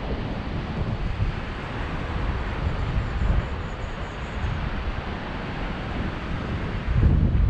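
Airflow buffeting the microphone of a paraglider in flight: a steady rushing wind noise with a low rumble, and a stronger gust near the end.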